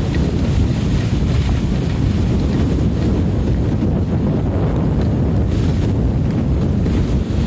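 Wind buffeting the microphone of a camera carried down a snow slope: a steady low rumble.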